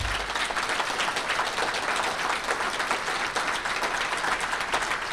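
Large seated audience applauding, a steady round of many hands clapping.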